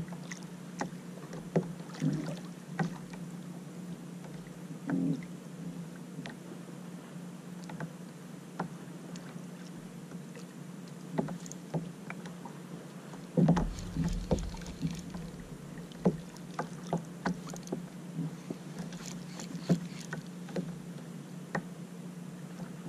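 Small waves lapping and slapping against a kayak hull, with scattered light knocks and one louder thump about halfway through, over a steady low hum.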